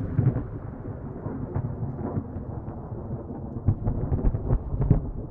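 Thunder rumbling and slowly fading right after a close lightning strike, with scattered sharp crackles that bunch together in the second half.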